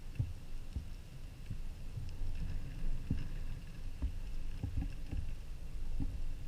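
Underwater ambient noise: a steady low rumble of water with scattered faint clicks and a faint steady high whine.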